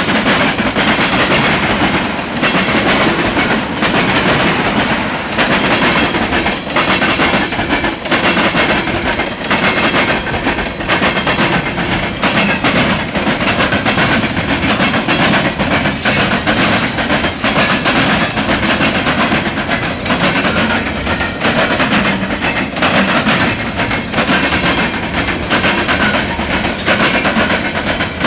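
Norfolk Southern freight train's cars rolling past, a loud, steady rumble with steel wheels clacking over the rail joints.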